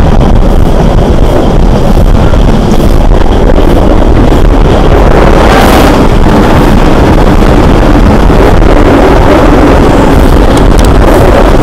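Class 465 Networker electric multiple unit running, a loud steady rumble with heavy wind noise on the microphone and no distinct motor whine standing out.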